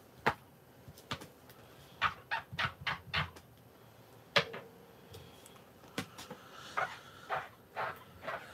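Clicks and clacks of a clear plastic stamp-cleaning case being opened and handled, mixed with short squeaks as acrylic-mounted rubber stamps are rubbed on the damp scrubber pad. The sharpest click comes just after the start, and another comes a little past the middle.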